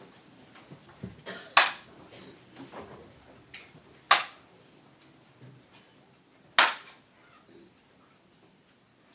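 A Buddhist bamboo clapper (jukbi) struck three times, sharp loud claps evenly spaced about two and a half seconds apart. This is the signal that leads the seated assembly in ritual. Faint rustling and small knocks sound between the claps.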